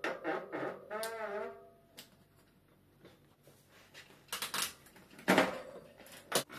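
Bicycle disc brake squealing for about a second and a half near the start, a wavering pitched squeak from pads that do not grab, the sign of oil and dirt on the pads and rotor. Then a few sharp clicks and knocks, the loudest about five seconds in.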